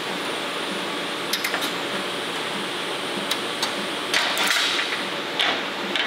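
Steel parts being handled on a steel welding table: a few light clicks, then louder clanks and a short scrape in the second half, over a steady background hiss.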